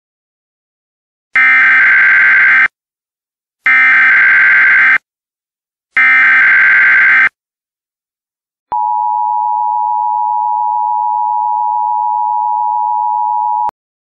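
Emergency Alert System SAME header: three identical bursts of buzzing digital data, each a little over a second long, followed by the steady two-tone EAS attention signal held for about five seconds, which then cuts off sharply.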